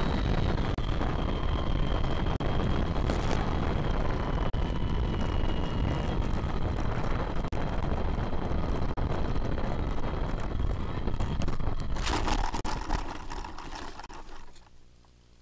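FPV quadcopter's motors and propellers running with heavy wind noise and a faint high whine. About twelve seconds in comes a quick clatter of knocks as it hits the ground, then the motors stop and only a faint hum is left.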